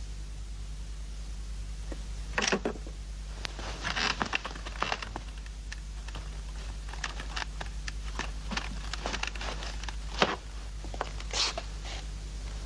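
Scattered small clicks, taps and clatter of tools and telephone parts being handled during a phone repair, with a few louder knocks about 2.5, 4, 10 and 11.5 seconds in, over a steady low hum.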